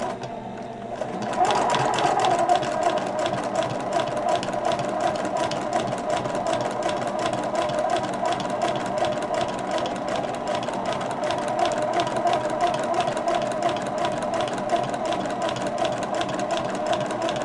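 Sewing machine stitching through a thick quilted upholstery panel. It comes up to speed about a second in, then runs steadily with a rapid, even clatter of needle strokes.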